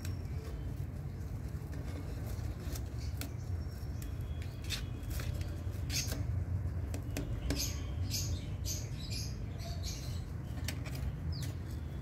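Rose-ringed parakeet's beak and claws clicking and scraping on the wire bars of a cage as it clings and climbs, with a quick run of clicks about two-thirds of the way through. A low steady rumble runs underneath.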